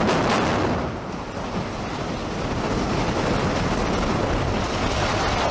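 A building collapsing in an explosive demolition: a loud, steady rumbling roar of falling structure and debris, easing slightly about a second in.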